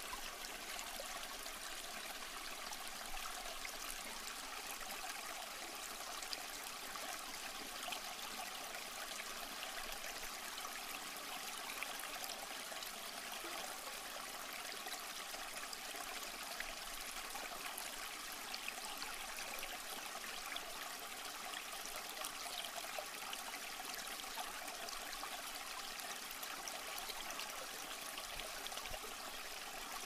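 A small stream flowing: a steady, even rush of running water full of little trickles.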